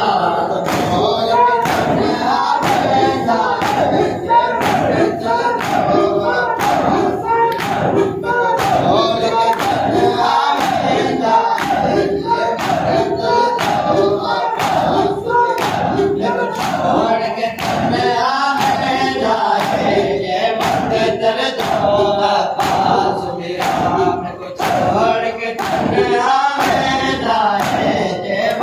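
Matam: a crowd of men beating their chests with open hands in a steady beat, a little faster than once a second, while chanting a noha together.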